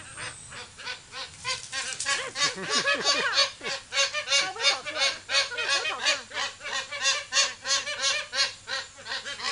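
Magpie geese honking in a rapid, unbroken series of about three or four calls a second, growing louder about two seconds in.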